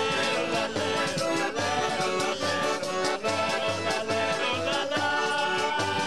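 Traditional Sicilian folk music played live on accordion, acoustic guitar and tambourine, with a steady beat.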